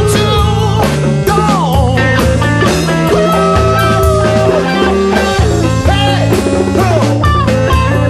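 Band music in an instrumental passage: guitar lines with bent notes over low notes stepping in a steady pattern, with drums keeping time.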